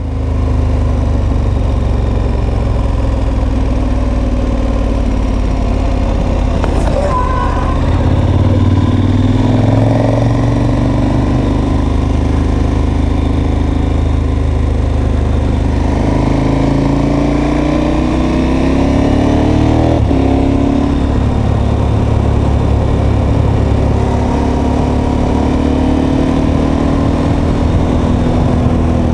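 KTM 1290 Super Adventure motorcycle engine heard from the saddle while riding. The engine pulls and rises in pitch, with a gear change about twenty seconds in, then runs on steadily at road speed.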